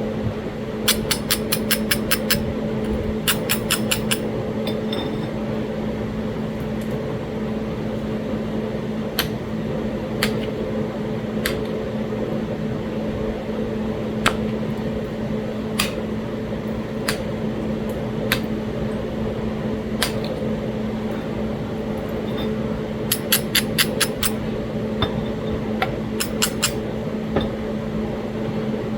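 Talahata quartzite being flintknapped: sharp stone clicks and ticks, some in quick runs of several and others single, spaced a second or more apart. A steady hum runs underneath.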